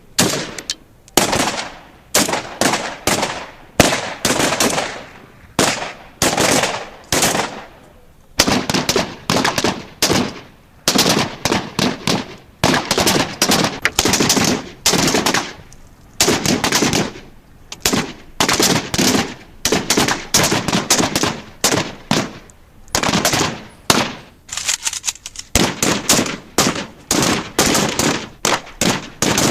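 Military automatic weapon firing in repeated bursts of rapid shots, each burst lasting about a second or two with short pauses between.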